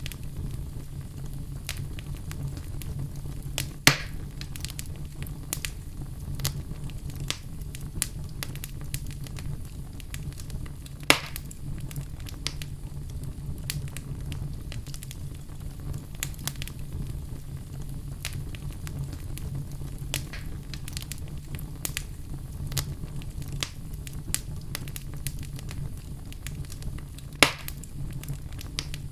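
Fire in a fireplace crackling, with dense small crackles over a steady low rumble. Three louder pops stand out: about 4 seconds in, about 11 seconds in, and near the end.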